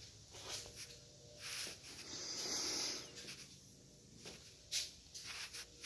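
A man breathing faintly into the microphone between sentences, with a longer breath about two seconds in and a couple of small mouth clicks near the end.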